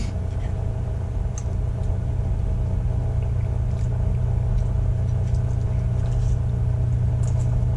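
A steady low hum runs throughout, with a few faint clicks and scrapes of a metal spoon against a metal pot.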